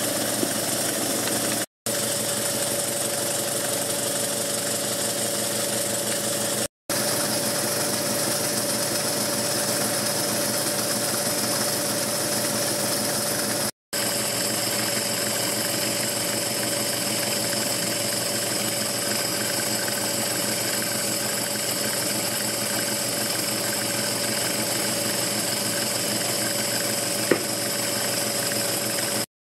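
Stuart S50 model steam engine running very fast on compressed air, a steady mechanical running sound. It drops out briefly three times and stops just before the end.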